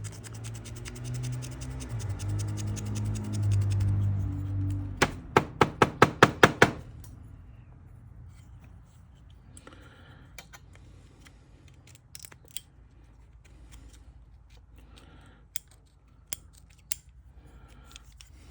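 Small metal parts of an old fuel tank sending unit being worked by hand on the bench. About five seconds in comes a quick run of about eight sharp clicks, followed by light scattered clicks and taps. Before that, a low wavering drone with a fast fine ticking fills the first few seconds.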